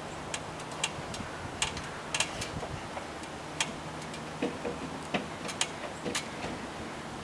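Irregular light clicks and taps from a storm window being handled and fitted into its frame, over a steady low hum.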